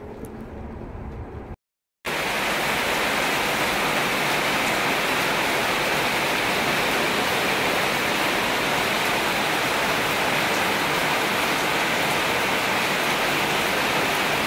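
Heavy rain pouring onto a flat concrete roof covered in standing water: a loud, dense, even hiss. It opens with quieter rain and a low wind rumble, broken by a short silent gap about a second and a half in, after which the downpour runs on steady.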